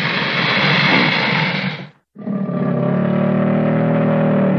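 American alligator vocalising: a long, rough, hissing growl that cuts off about two seconds in, then after a brief gap a deeper, more tonal bellow.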